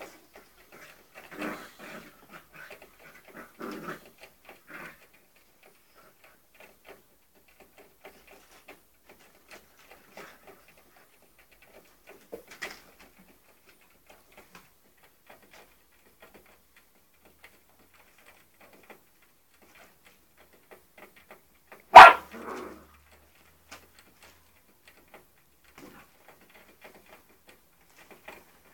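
Springer spaniel puppy at play, giving short yelps and whimpers in the first few seconds and one loud bark about three-quarters of the way through, with faint scattered clicks and scuffles between.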